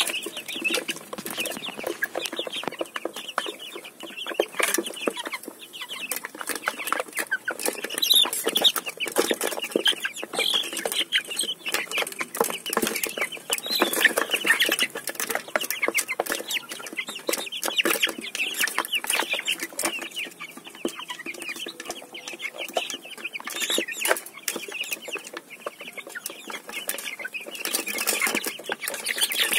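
Australorp hens clucking continually, with many sharp taps of beaks pecking feed from a plastic feeder.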